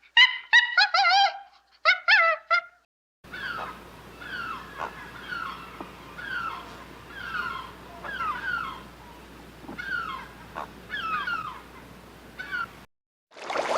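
Animal calls: a few loud, pitched calls at first, then after a cut a young animal's repeated short cries, each falling in pitch, about two a second over a faint background hum.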